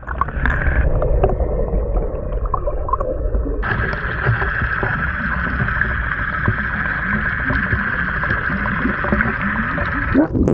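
Muffled rushing water heard through a camera held underwater beside a moving pontoon boat. About three and a half seconds in, a steady whine from the outboard motor joins it, heard through the water, and it breaks off near the end.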